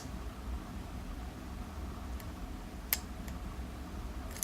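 Lock pick working the pin stacks of a 7-pin Zeiss Ikon euro cylinder: a few faint, sharp metallic clicks, the clearest about three seconds in.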